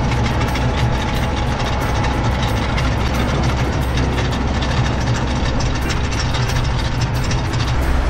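Kubota tractor engine running steadily under load with its PTO-driven levee-plastering machine turning, the rotor churning and packing wet soil into the paddy ridge: a loud, even mechanical drone with a low engine hum beneath.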